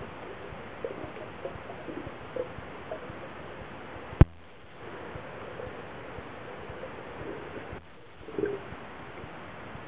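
Muffled underwater pool sound picked up by a submerged camera: a steady hiss with faint bubbling blips, broken by one sharp knock about four seconds in.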